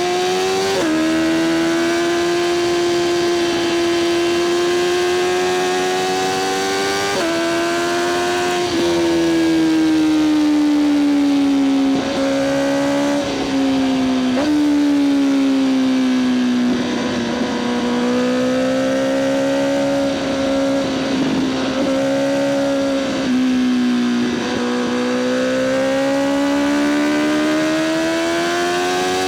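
Honda CBR1000RR-R SP Fireblade's inline-four engine running through an Akrapovic exhaust while being ridden. The note climbs steadily and drops abruptly with each quickshifter upshift, holds lower and steadier in the middle with a few brief dips, then climbs again near the end.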